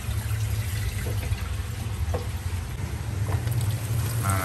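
Water splashing and pouring steadily into a glass aquarium as it is filled, over a steady low hum.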